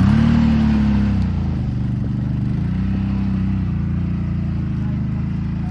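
CFMOTO off-road vehicle's engine running: a brief rev rising and falling at the start, then settling to a steady idle.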